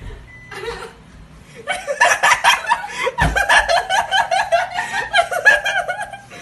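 People laughing: a short sound under a second in, then a long run of rapid laughter from about two seconds in to near the end.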